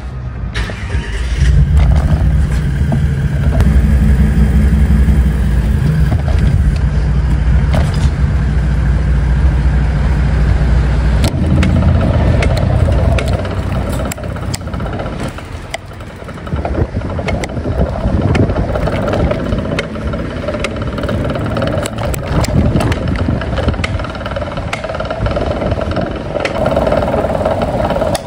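A bicycle rolling over brick paving, with a heavy low rumble through the first dozen seconds. After that, many short clicks and rattles come from the bike on the pavers.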